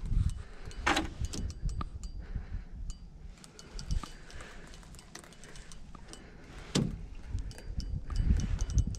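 A fishing reel being cranked and the rod handled while playing a hooked channel catfish: irregular clicks and knocks, two brief rubbing swishes about a second in and near seven seconds, and wind rumbling on the microphone.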